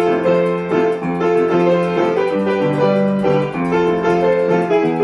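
Instrumental music led by a keyboard, playing held notes that change every fraction of a second over a light steady beat.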